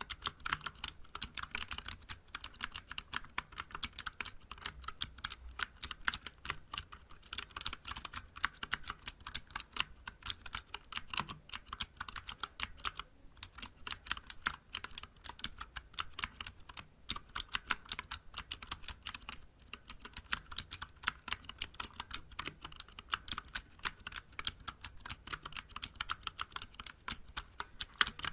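Fast, continuous typing on a Vortex Vibe mechanical keyboard with clicky Cherry MX Blue switches, SA-profile keycaps and an aluminium case. Each keystroke gives a sharp click, and there is a short pause about thirteen seconds in.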